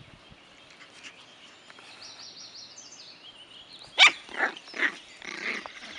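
Six-week-old shichon puppies play-fighting: one gives a sharp yap about two-thirds of the way in, followed by three shorter, weaker yaps.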